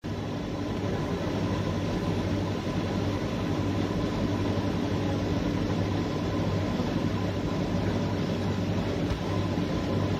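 Steady machine drone with a low hum and a few faint steady whines above it, unchanging throughout.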